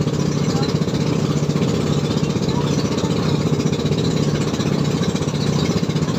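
Outrigger boat's engine running steadily underway at an even pitch.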